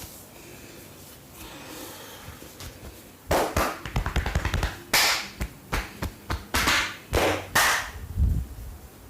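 Hands striking the head and upper body in an Indian massage. About three seconds in comes a quick run of taps, followed by a series of sharp slaps roughly every half second.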